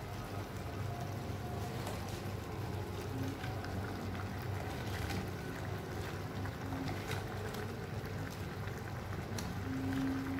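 Tomato-sauce vegetable stew simmering in a pan, a steady bubbling hiss with small scattered pops and crackles.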